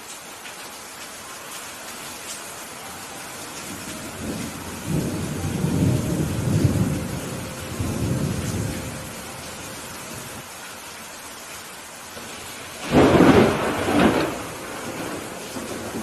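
Steady rain falling, with thunder: a low rolling rumble from about four seconds in to nine, then a louder, sharper thunderclap about thirteen seconds in.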